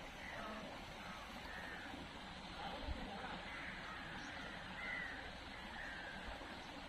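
Birds calling now and then, short chirping calls about once a second, over a steady outdoor hiss, with one brief low thump about three seconds in.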